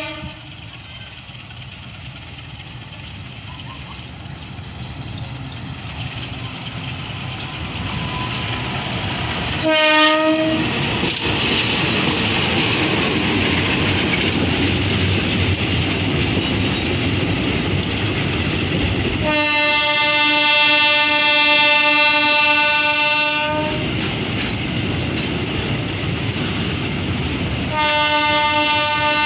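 CC204 diesel-electric locomotive approaching and passing with a train of fuel tank wagons: its rumble grows louder over the first ten seconds. A short horn blast comes about ten seconds in, a long horn blast of about four seconds comes about twenty seconds in, and another blast starts near the end, over the noise of the tank wagons rolling past.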